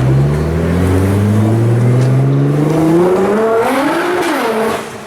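Twin-turbo V6 of a tuned Nissan GT-R with a titanium exhaust, accelerating hard. The engine note climbs steadily for about four seconds, wavers up and down briefly, then drops off as the throttle is lifted near the end.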